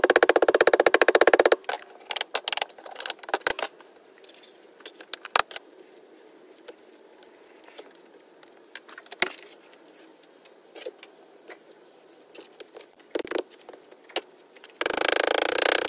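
A tool hammering rapidly and evenly as it packs Petrobond sand into a steel casting flask, for about a second and a half. Then come scattered clicks and scrapes of gloved hands working loose sand and the flask, and the fast hammering starts again briefly near the end.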